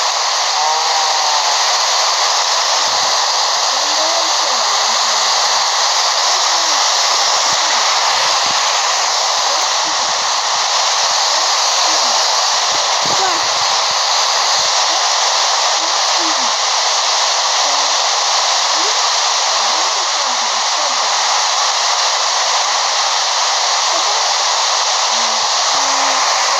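Steady loud hiss, unchanging throughout, with faint voices beneath it.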